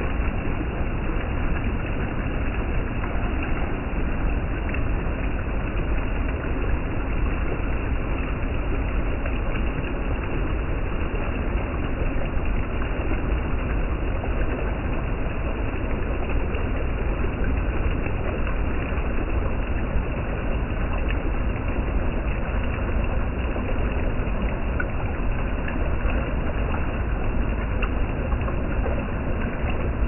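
Fast, shallow stream water rushing steadily over rock, with a cascade falling into the pool upstream.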